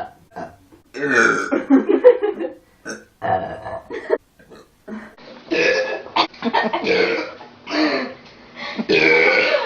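A young woman burping repeatedly: about five drawn-out, loud burps of one to two seconds each, with short pauses between them.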